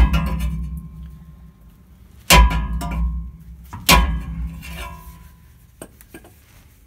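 Hammer blows on a steel exhaust pipe's swaged-on joint, after a cut has been sawn into it, to knock it loose. There are three hard metallic clangs, one right at the start and the others about two and four seconds in, each ringing on and dying away over about a second, then a lighter tap near six seconds.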